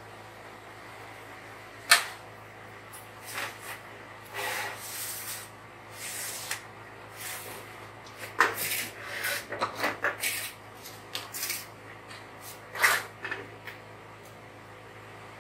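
A metal ladle scraping and knocking against the side of a large aluminium pot as soup is dished out, with plastic takeaway containers being handled and set down on the floor. It comes as a series of short clicks, knocks and scrapes, the sharpest knock about two seconds in and a busy cluster a little past the middle.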